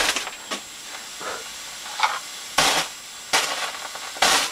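Potassium nitrate, aluminium and sulfur strobe firework star burning: a short burst of noise with each flash, several at uneven intervals, the strongest ones in the second half.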